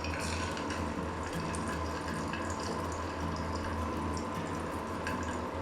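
Batter-coated potato wedges deep-frying in hot oil in a kadai: a steady sizzle with many small crackles, over a steady low hum.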